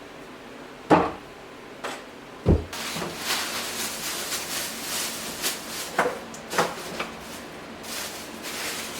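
Things being handled and put away by hand: two sharp knocks about a second apart early on, then several seconds of rustling with scattered light clicks and knocks.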